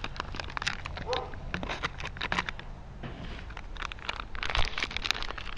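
Plastic food pouches crinkling and rustling in the hands as instant mashed potato flakes are tipped from their pouch into a stand-up foil pouch: a quick, irregular run of dry crackles.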